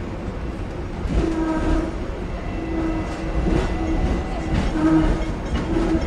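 Hong Kong double-decker tram running along the track: a low rumble with a few clicks, and from about a second in a steady whine that comes and goes in short stretches.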